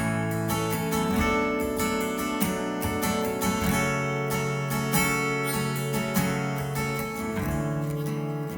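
Worship band instrumental between sung lines: acoustic guitar strumming steady chords over sustained accompaniment.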